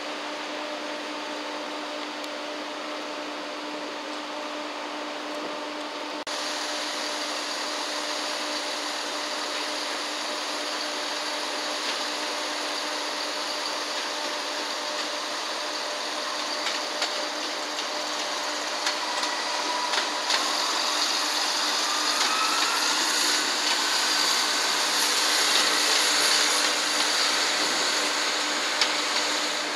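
Chiltern Railways Class 168 diesel multiple unit running on the station approach tracks: a steady diesel drone with a held hum, growing louder as the train comes close. A rising whine comes in about two-thirds of the way through.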